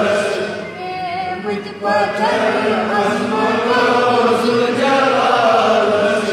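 A young boy's voice singing a hamd, a devotional hymn in praise of God, in Kashmiri without instruments, in chant-like phrases of long held, wavering notes.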